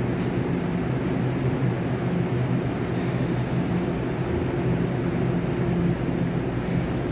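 Electric commuter train standing at the platform, its onboard equipment and air conditioning giving a steady low hum.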